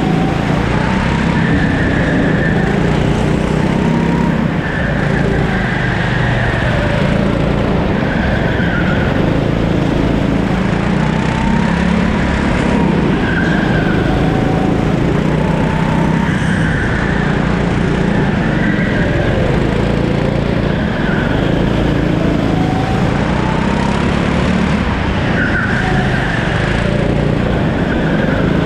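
A 13-horsepower Rimo rental kart engine running hard through a lap. Its pitch repeatedly rises and falls as the kart speeds up and slows for corners.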